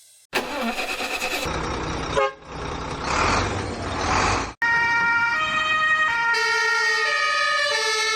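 Toy-vehicle sound effects: a noisy engine-like rumble for about four seconds, then, after a sudden cut, a siren of steady electronic tones stepping between pitches.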